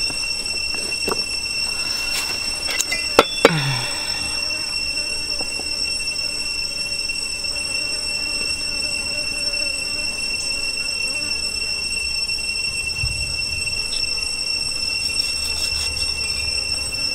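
Steady high-pitched insect drone, like cicadas or crickets. About three seconds in there are two sharp knocks of a steel cleaver against a wooden chopping block, and a few fainter knocks and scrapes follow as the cleaver works a cow's foot.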